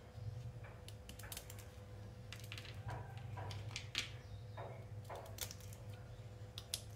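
Kitchen knife clicking and tapping against a plastic plate as dates and nuts are cut into small pieces: faint, irregular clicks over a low steady hum. A few faint short pitched sounds come in around the middle.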